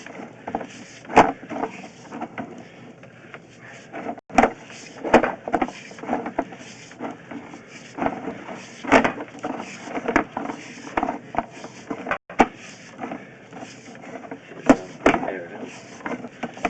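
Irregular knocks and clatter of a drain inspection camera and its push cable being fed through a cast iron drain pipe.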